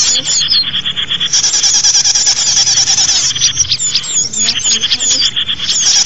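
Small songbirds calling in fast, high-pitched chittering trills with quick chirps mixed in, breaking off briefly about half a second in and again just past the middle.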